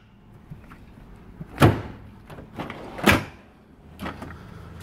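Steel tool chest drawers being slid shut and pulled open on their runners: two loud clunks about a second and a half apart.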